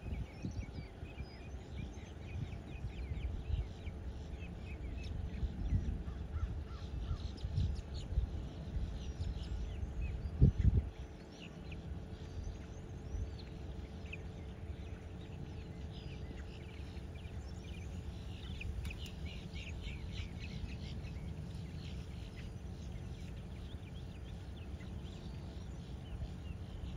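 Birds calling in the background, short crow-like caws, over a low rumble of wind on the microphone, with one loud thump about ten and a half seconds in.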